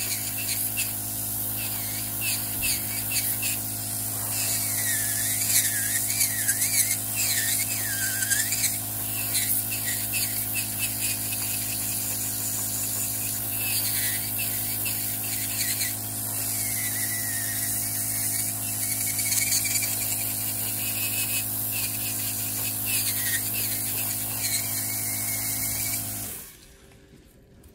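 Electric podiatry nail drill with a rotary burr grinding down a thick fungal toenail. A steady motor hum runs under a higher whine that wavers up and down as the burr works the nail. It stops suddenly near the end.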